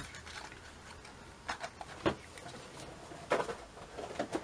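Hands handling a small cardboard parts box and its wax-paper wrapping: soft rustling with a few scattered light knocks on the table. The knocks are loudest about two seconds in and again after three seconds.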